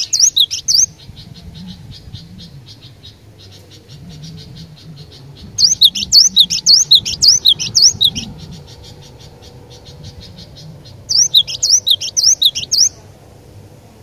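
Cinereous tit (glatik batu) singing: bursts of rapid, repeated high chirps near the start, from about five and a half to eight seconds in, and again from about eleven to thirteen seconds in, with a fainter fast chatter between the bursts.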